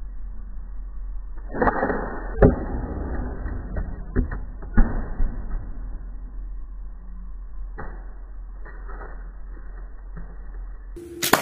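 A slingshot shot hitting a plastic cup on a plastic table and knocking it to the ground: a few sharp knocks and clacks, the loudest about two and a half seconds in and another near five seconds in, over a steady low hum.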